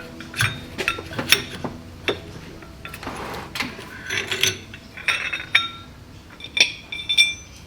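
Metal turbocharger parts clicking and clinking as they are worked loose and handled, a series of short knocks, some with a brief metallic ring.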